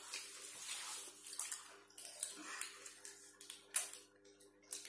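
Soft rustling and handling of fried chicken on a banana leaf, with a few light clicks. A faint steady hum runs underneath.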